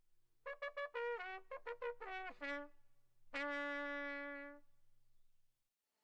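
Short trumpet fanfare: a quick run of short notes, then one long held note that fades out.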